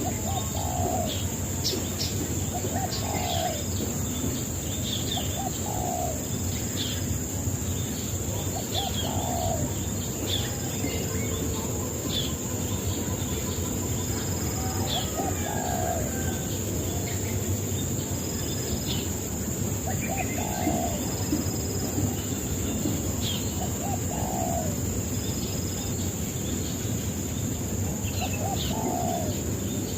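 Birds calling: a short low call repeated every two to three seconds and scattered high chirps, over a steady high-pitched insect drone.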